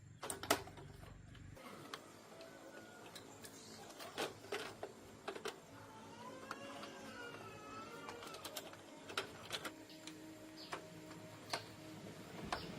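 Scattered light clicks and knocks, with a bird calling in the background for a couple of seconds in the middle.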